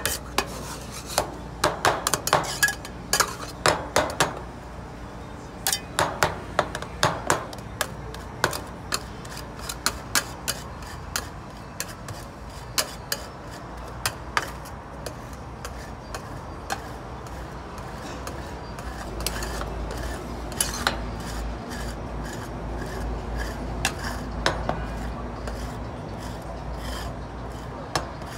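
Metal spatulas tapping and scraping on the cold steel plate of an iron-plate rolled ice cream griddle. Sharp irregular taps come thick in the first several seconds, then thin out, with scraping between them.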